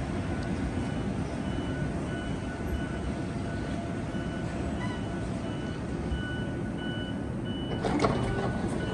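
Repeated high electronic beeps, evenly spaced, over a steady low rumble of vehicles at a bus and train station, like a vehicle's reversing alarm. A single louder thump comes near the end.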